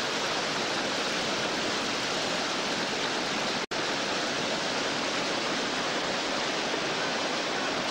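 Whitewater rapids of the Belaya River rushing in a steady, loud roar of churning water, as a raft is paddled through them. The sound cuts out for an instant about halfway through.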